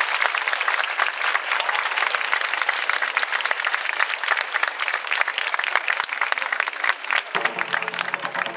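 Crowd applauding, a dense patter of many hands clapping after a taiko drum performance. Near the end, music with steady held notes cuts in suddenly over the clapping.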